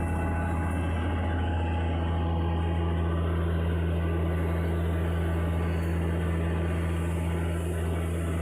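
Moringa powder grinding machine running steadily: a constant deep hum with several steady higher tones above it, unchanging throughout.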